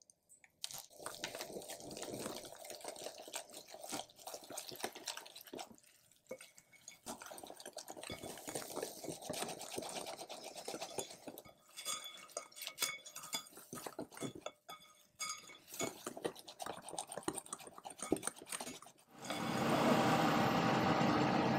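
Wire whisk beating pancake batter in a glass bowl: a fast, uneven run of clicks and scrapes against the glass, with a few short pauses. Near the end it stops and a steady hiss takes over.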